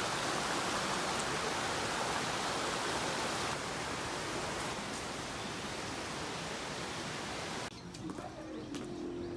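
A steady rushing hiss that eases slightly partway through and cuts off abruptly near the end, leaving faint clicks and a few held tones.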